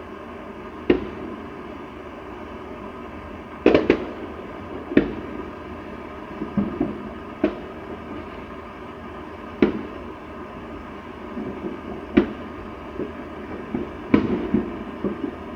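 Fireworks going off: single sharp bangs every one to two and a half seconds at irregular spacing, with smaller crackling pops between them over a steady background hiss.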